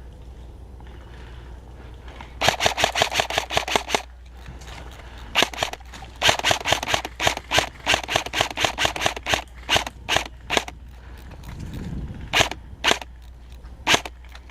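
Airsoft rifle firing rapid full-auto bursts of sharp clacks, roughly ten shots a second: a burst a couple of seconds in, a longer one of about three seconds in the middle, then scattered single shots.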